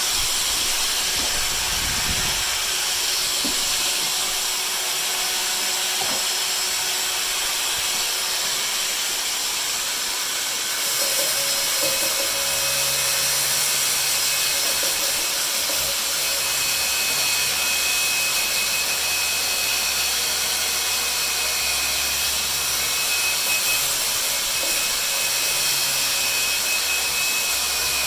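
A power tool running continuously, a steady hissing noise with no breaks. About ten seconds in its sound shifts and a low steady hum joins in.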